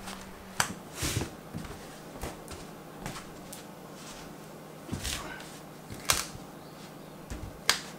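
Scattered sharp knocks and clunks, about five, a second or more apart, from a tatami mat being handled and set against the wooden floor and frame.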